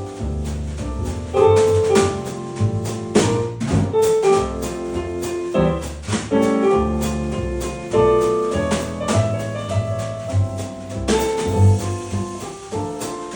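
Instrumental music with a steady beat: held pitched notes over a bass line and drums.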